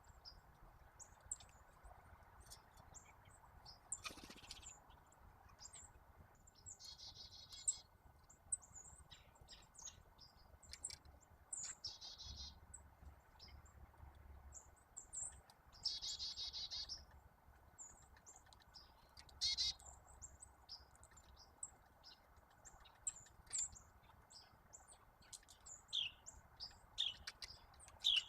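Small songbirds calling around a backyard feeder: scattered short, high chirps throughout, with three rapid trills of about a second each, at roughly 7, 12 and 16 seconds in. A brief rush of noise comes about four seconds in.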